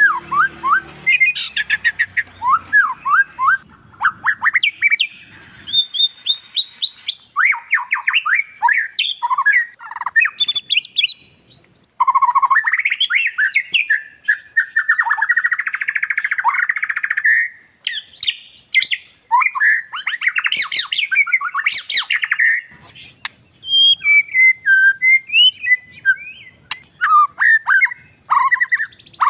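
Oriental magpie-robin (kacer) singing a long, varied song of quick whistled notes sweeping up and down, broken in the middle by harsh buzzy rasping phrases.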